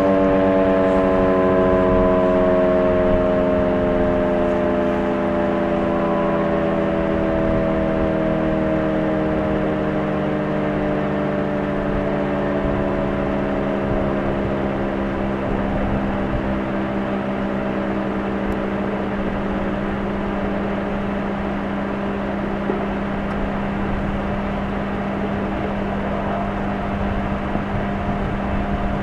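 Federal Signal RSH-10 Thunderbeam electromechanical siren winding down, its tone gliding slowly lower and fading away, with a steady low hum holding underneath. Heavy wind noise buffets the microphone throughout.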